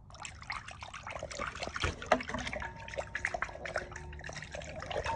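Water sloshing and splashing in a glass bowl as a hand swishes through it, with a quick, uneven run of small splashes and drips.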